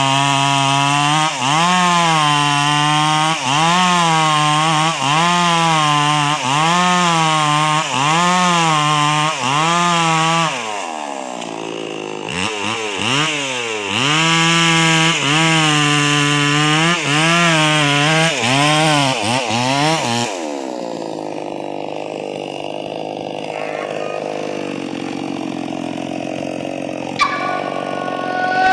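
Two-stroke chainsaw with a 22-inch bar cutting wood at full throttle, its pitch dipping about once a second as the chain bites. It eases off about ten seconds in, revs up and cuts again, then drops to idle about twenty seconds in.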